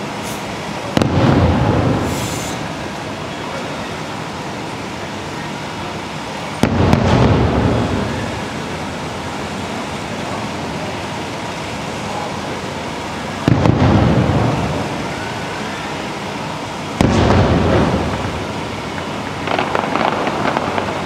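Fireworks shells bursting in four separate booms, each echoing away over a second or so: about a second in, near seven seconds, around thirteen and a half, and at seventeen. A fast run of sharp clicks starts near the end.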